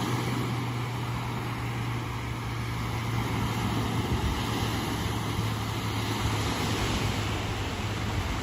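Steady rushing noise with a low, even hum underneath.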